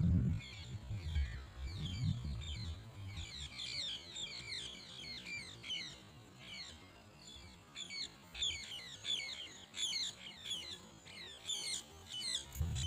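A chorus of small birds chirping, with many short falling chirps overlapping throughout. A low rumble sits under the first couple of seconds and comes back near the end.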